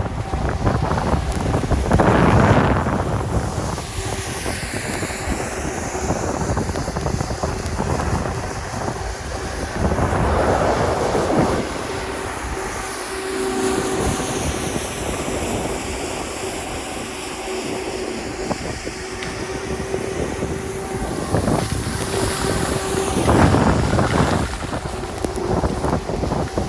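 Wind rushing over the microphone along with the hiss and scrape of skis on snow during a downhill run, swelling louder in a few surges. A faint steady tone sits under the noise through the middle.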